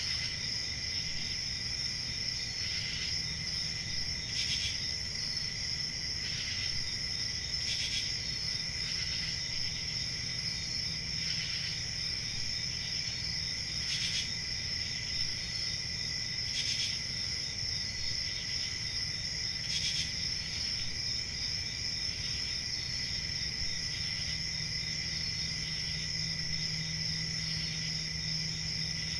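Crickets chirping in a steady chorus: a continuous high trill, with louder individual chirps standing out every two to three seconds.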